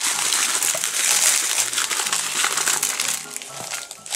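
Coarse sea salt poured from a plastic bag onto whole bonito in a plastic tub: a steady hiss of falling crystals with the bag crinkling, easing off shortly before the end. Soft background music runs underneath.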